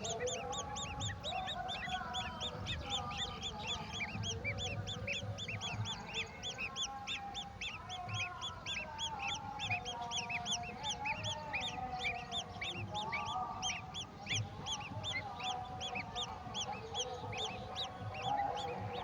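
Golden oriole nestlings begging: a rapid, unbroken run of high chirps, about five or six a second, over lower nasal wavering calls.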